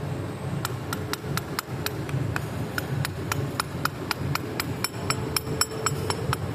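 Light metal-on-metal tapping, about four taps a second, each with a brief ring, over a steady low rumble.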